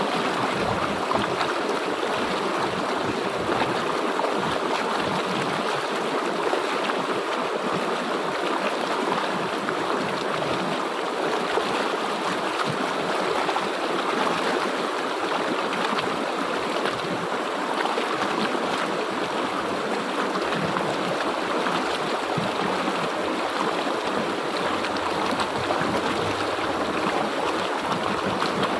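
A river's water flowing in a steady, unbroken rush.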